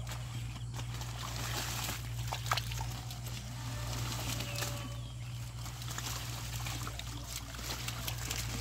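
Muddy water trickling and sloshing as hands pull clumps of water hyacinth out of a shallow pond, with scattered small splashes and clicks over a steady low hum.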